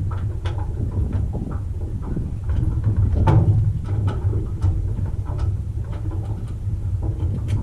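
Cessna 140A's engine running at low power, a steady low drone, with irregular knocks and rattles over it, typical of the airplane taxiing.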